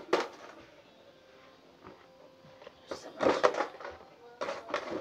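Cardboard toy box being handled, with short bursts of scraping and rustling: once at the start, a cluster about three seconds in and again near the end.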